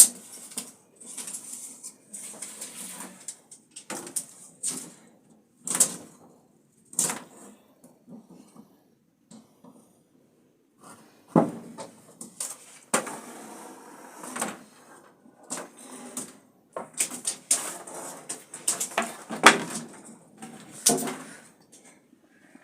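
Irregular knocks, clacks and rustling of things being handled, with a few sharp clicks and a short lull midway.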